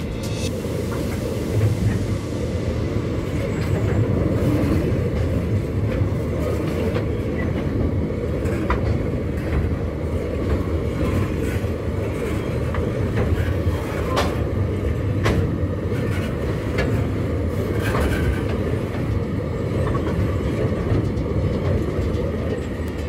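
Empty freight wagons rolling past at close range: a steady low rumble of steel wheels on the rails, with scattered sharp clicks and clanks.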